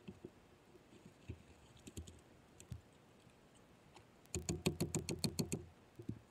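A hammer nailing a 2x4 against a wooden fence post: a few faint knocks, then a quick run of about a dozen sharp strikes a little over four seconds in.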